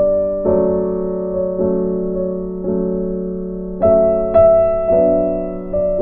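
Background music: piano chords struck about once a second, each ringing on and fading before the next.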